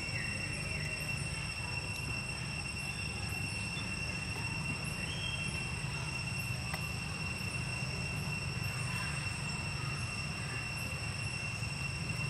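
Steady outdoor background: a constant high-pitched whine over a low rumble, unchanging throughout.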